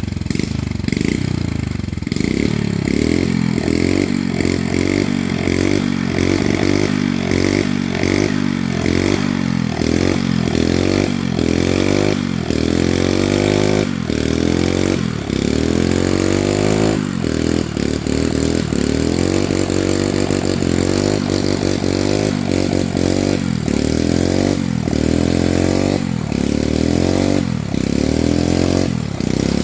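Small motorcycle engine on a homemade pulling rig running hard, its revs swelling and sagging over and over, about once a second, under the load of pulling the tree over.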